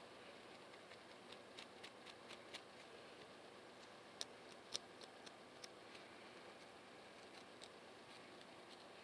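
Faint, scattered scratching clicks of fingernails and a fine-tooth comb on a scalp between braids, working loose dandruff flakes, with two sharper clicks about four to five seconds in.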